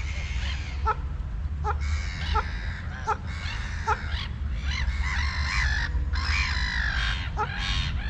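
White domestic geese honking. Short, clipped calls come about every 0.7 seconds at first; from about halfway, longer, harsher honks follow, all over a steady low rumble.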